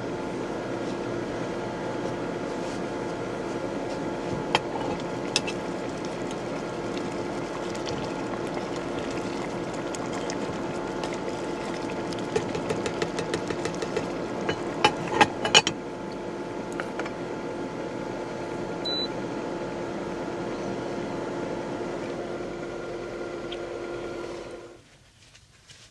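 A small motor running with a steady hum and a few clicks and taps around the middle, then cut off shortly before the end.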